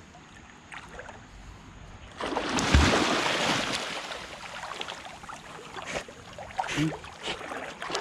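Water splashing: a sudden loud splash about two seconds in, dying away over a couple of seconds, then smaller splashes as a rottweiler swims through a shallow river.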